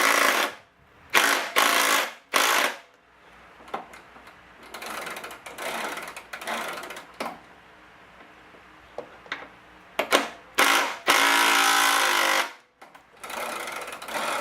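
Power impact tool run in a series of short bursts and then one longer run of about a second and a half, driving the mower's wheel bolt tight.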